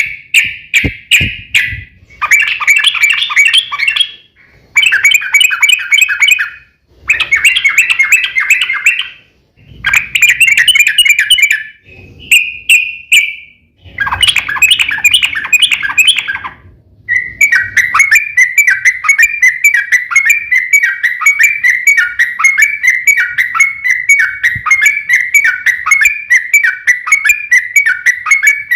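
Yellow-vented bulbul (trucuk) chattering loudly in rapid-note phrases of about two seconds with short gaps, then one long unbroken run of rapid notes from about two-thirds of the way in. This is the long, fast 'ropel' song used in fighting bouts.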